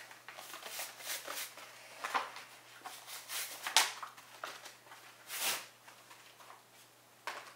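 Plastic and foil packaging of a Pokémon card pack crinkling and tearing as it is opened by hand. Irregular rustles with a few sharper rips, the loudest about four and five and a half seconds in.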